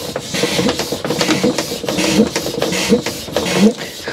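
Hand-operated vacuum oil extractor being pumped, a steady rhythm of airy strokes, a little more than one a second, each with a short rising squeak. It is building vacuum in the canister to draw the old engine oil up the extraction tube out of the Volvo Penta MD2040 diesel's sump.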